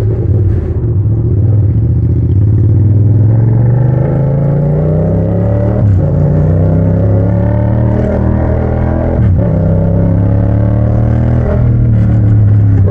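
Yamaha MT-07 parallel-twin engine through a straight-pipe exhaust, accelerating under load, its note climbing in pitch and dipping briefly at several quick upshifts.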